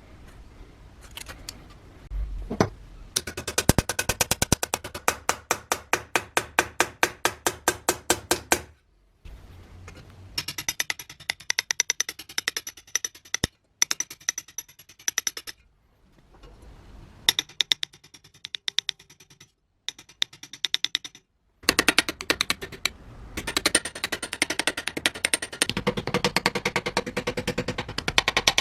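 Rapid, even runs of sharp clicking or scraping strokes, about six a second, broken off abruptly several times.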